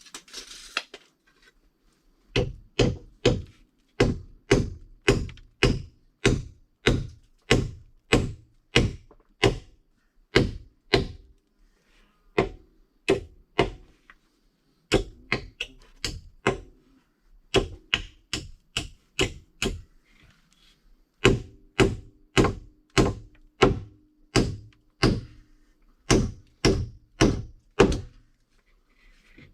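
Hammer blows on timber, about two a second in runs broken by short pauses, each blow a sharp thunk, some with a brief ring: the sound of nailing a wooden frame.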